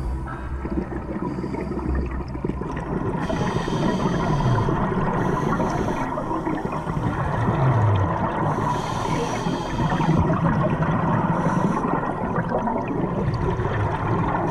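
Scuba regulator breathing underwater: exhaled bubbles rush out in bursts every few seconds over a steady watery rumble, muffled through the camera's underwater housing.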